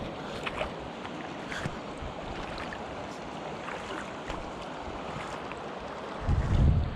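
Small mountain stream running steadily, with scattered light splashes and ticks. Near the end, a loud low rumble on the microphone for under a second.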